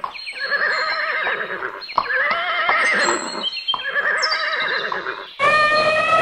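Horse whinnying three times in a row, each neigh about a second and a half long with a quavering pitch. Near the end a long, steady trumpeting call starts: an elephant trumpeting.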